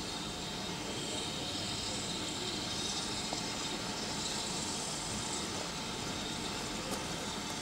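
BR Standard Class 9F 2-10-0 steam locomotive letting off steam: a steady hiss with no distinct exhaust beats or whistle.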